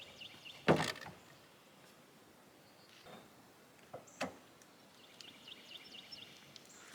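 A sharp knock about a second in, then two softer knocks, with a faint quick run of high chirps near the end.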